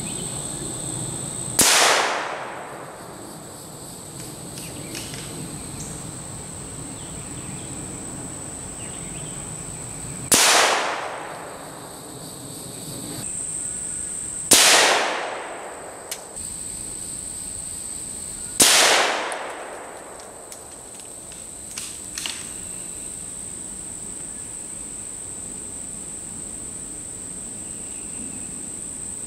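Four rimfire rifle shots (17 HMR and 22 WMR) fired at a paper target, unevenly spaced, each a sharp crack with an echo trailing off for about a second. A steady high insect drone runs underneath.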